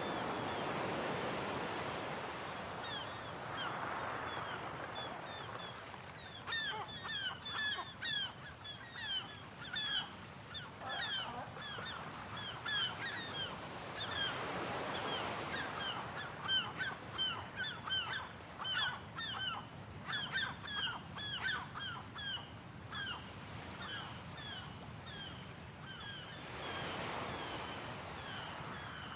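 Ocean waves washing in and drawing back in slow swells, with a flock of birds calling over them in many short, falling honk-like cries, busiest in the middle and thinning toward the end.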